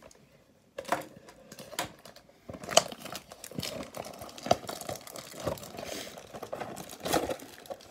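Plastic shrink wrap on a cardboard trading-card box crinkling and crackling as it is picked at and torn off. The crackles are quick and irregular and start about a second in.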